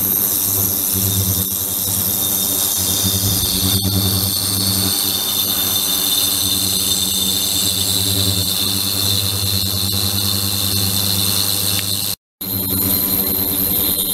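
Stainless-steel ultrasonic tank running under a water-filled plastic container: a steady, loud buzzing hum with a high-pitched whine above it. It breaks off in a brief gap of silence about twelve seconds in.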